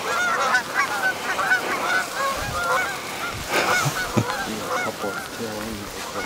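A flock of geese honking in flight, many overlapping calls that thin out toward the end.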